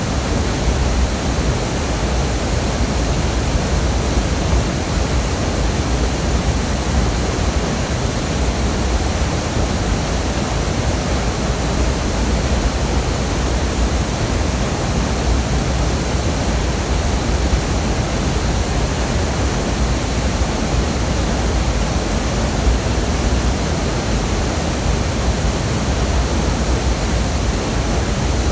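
Waterfall: a steady, loud rush of falling water, heaviest in the low end, with no change throughout.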